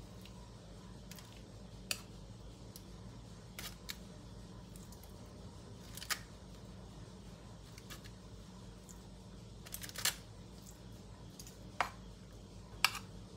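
Metal kitchen tongs clicking against a bowl and aluminium-foil cups as raw fish pieces are set in: about half a dozen short, sharp clicks at irregular intervals, over a faint steady low hum.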